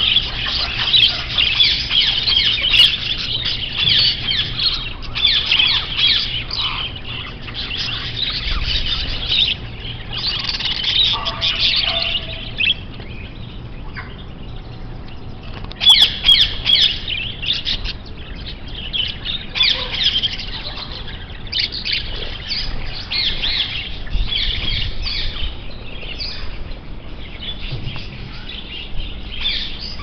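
A cage full of budgerigars chattering, a dense, fast, high chirping and warbling from many birds at once that thins out for a couple of seconds midway and then picks up again.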